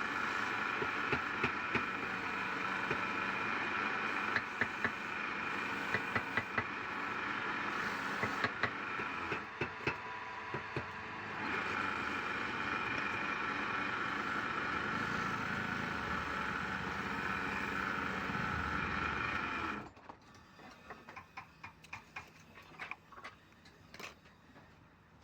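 Woodturning lathe running steadily with a whining hum, with scattered sharp ticks. About 20 seconds in, the running sound cuts off, leaving only quiet clicks and knocks.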